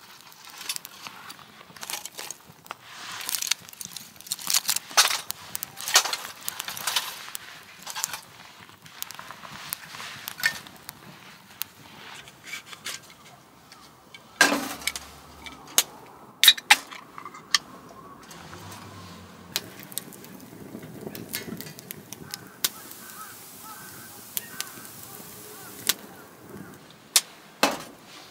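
Dry conifer twigs burning in a small fire pit, crackling with many sharp pops, densest in the first several seconds. Later come scattered clicks and knocks of objects set down on a metal camp table.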